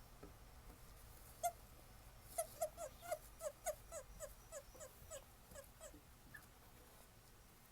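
Male Japanese stream toads (Bufo torrenticola) calling: one short chirp, then a quick run of about fifteen short chirps, each dipping slightly in pitch, about four a second, growing fainter toward the end.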